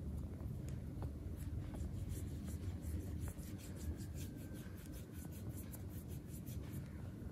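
Hands rubbing and lightly patting a baby monkey's oiled paw in a massage: a quick run of soft skin-on-skin strokes, about five a second, starting about two seconds in.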